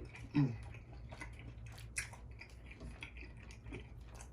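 Close-up chewing of tomahawk steak, with many short wet smacking clicks from the mouth and a sharper click about two seconds in. A brief hummed voice sound about half a second in.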